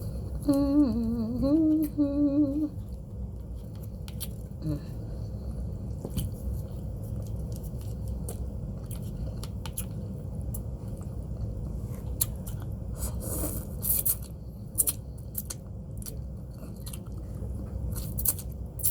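Someone eating pho with chopsticks: chewing and small eating noises with scattered clicks, over a steady low hum. A short hummed tune wavers about a second in.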